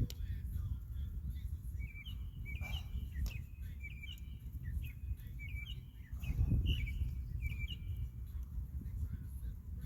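A small bird chirping a quick run of short, repeated high notes, over a steady low rumble.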